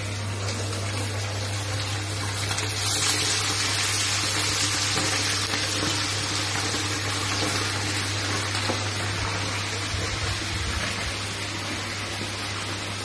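Chicken pieces deep-frying in hot oil in a kadai, a loud steady sizzle. It swells about three seconds in and then slowly eases, over a steady low hum.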